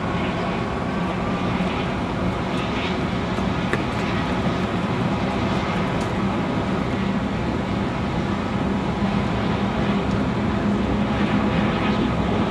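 A train crossing the steel bridge overhead, heard from below: a steady rumble with a low, even hum.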